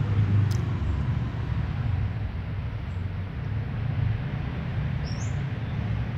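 A steady low rumble throughout, with a click about half a second in and one short rising bird chirp about five seconds in.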